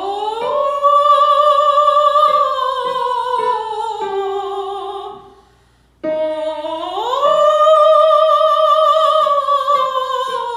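A mezzo-soprano sings a siren warm-up on an "oh" vowel, twice: each time her voice slides up into head voice, holds near the top, then comes back down over five notes. The second run starts about six seconds in, pitched a little higher.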